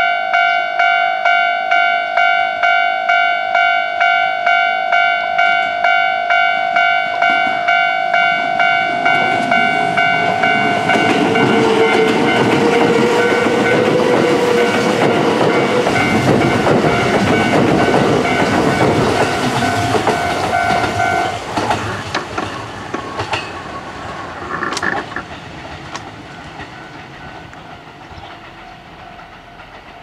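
Japanese level-crossing warning bell ringing in a steady ding-ding about twice a second while a Kintetsu 22000/22600-series limited express train passes, its wheels clattering over the rails. The bell stops about two-thirds of the way through, and the train's rumble fades away.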